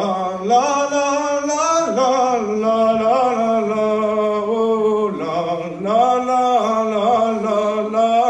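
A man singing solo and unaccompanied, a Breton gwerz (a slow narrative lament), in long held notes that step and glide from one pitch to the next.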